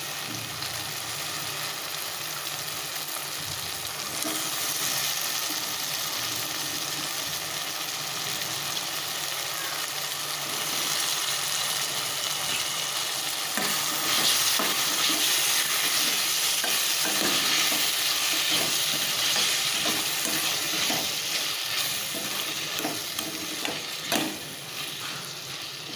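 Chopped cucumber sizzling as it fries in oil and onion-tomato masala in a stainless steel kadai, stirred with a steel ladle that knocks and scrapes against the pan a few times. The sizzle grows louder about halfway through.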